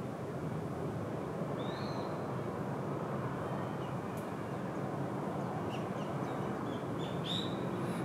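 Steady low rumble of distant traffic, with a few short, high bird chirps scattered through it, the clearest near the end.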